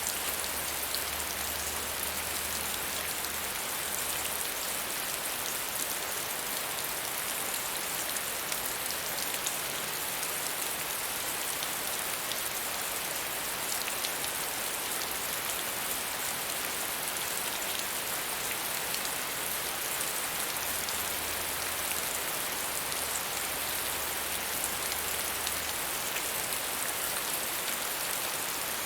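Steady medium rainfall, a continuous hiss of many small drops pattering on a surface, with no change in strength.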